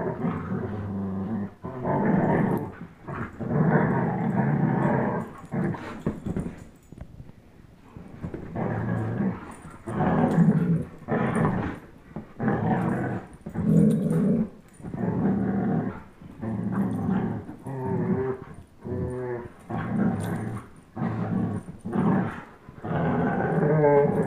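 Two dogs, a German Shepherd and an Old English Sheepdog, play-growling while tugging a toy in a game of tug of war. The growls come in repeated rough bursts of about a second each with short breaks, easing off for a few seconds partway through.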